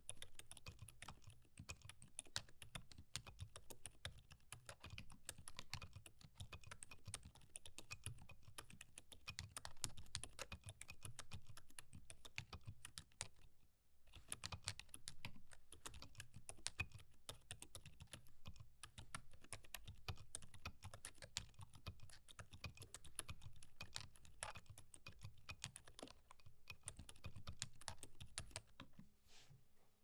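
Fast, steady typing on a Vortex Model M SSK keyboard fitted with Gazzew Boba U4 silent tactile switches on an FR4 plate with Poron foam, giving soft, muted keystrokes. There is a brief pause about halfway, and the typing stops just before the end.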